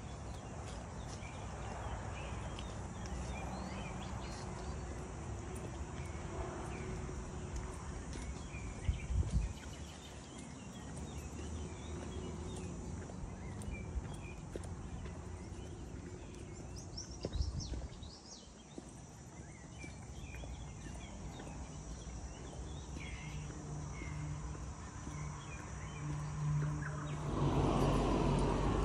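Birds calling with short chirps scattered throughout, over a low steady rumble, with a burst of quick high bird song about two-thirds of the way through. Two sharp thumps stand out, one about a third of the way in and one just after the bird song, and a louder rush of noise sets in near the end.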